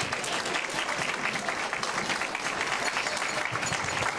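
A roomful of people applauding, steady dense clapping.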